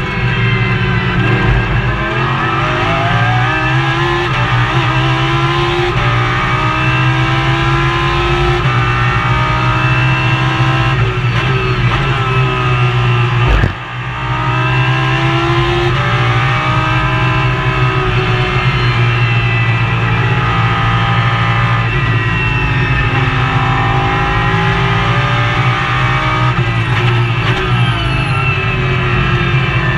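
Lamborghini Super Trofeo race car's V10 engine heard from inside the cockpit, rising and falling in pitch as it accelerates through the gears and slows for corners, over a heavy steady drone. About fourteen seconds in there is a sharp crack and a brief dip in level.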